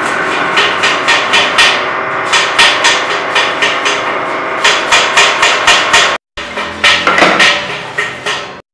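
Metal lathe running with a steady hum while turning a cast aluminium part, under runs of rapid sharp knocks, about four to five a second, that come and go in stretches of a second or so.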